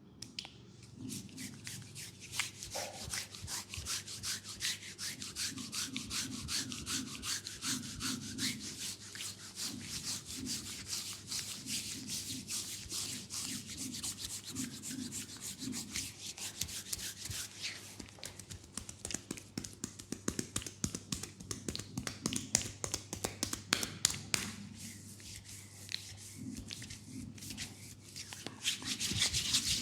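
Hands rubbing briskly over bare skin in a leg massage: a fast, continuous run of brushing strokes, several a second.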